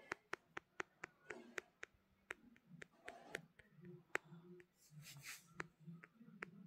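Faint, sharp clicks, about four a second at first and then more irregular, with a short hiss about five seconds in.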